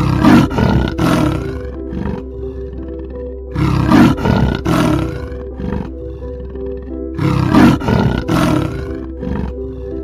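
Big cat roaring in three bouts about three seconds apart, each a few harsh pulses, over steady background music.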